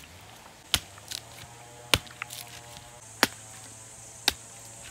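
Machete chopping into a coconut: four sharp chops about a second apart, with a couple of lighter knocks in between.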